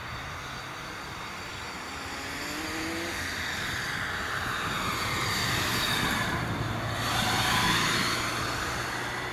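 Bombardier CRJ-900's twin turbofan jet engines at takeoff power, heard from a distance as a swelling jet roar, with high whining tones that slide down and then back up as the aircraft starts its takeoff roll. Under it runs the steady low hum of a tractor engine.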